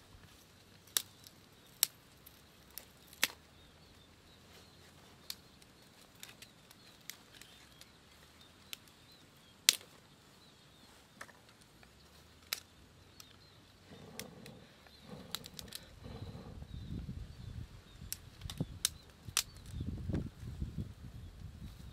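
Small fire of dry twigs and straw crackling, with sharp pops every second or two. About two-thirds of the way in, a low rough rumbling noise starts up under more frequent pops.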